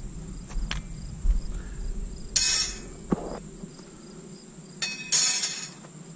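Insects, crickets among them, singing steadily: a constant high-pitched buzz with a faint pulsing chirp beneath it. Two brief rustles break in, about two and a half and five seconds in.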